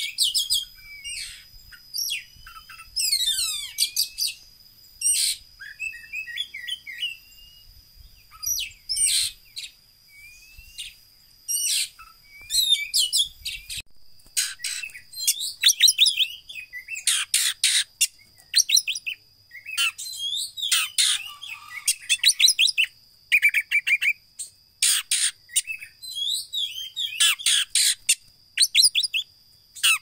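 Caged oriental magpie-robin (koci) singing: a long run of varied whistles, chirps and quick trills in short bursts, with gaps between phrases, growing busier in the second half.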